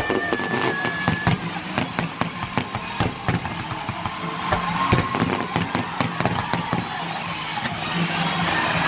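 Aerial fireworks going off in rapid succession: many sharp pops and bangs with crackling, and a high whistle in the first second.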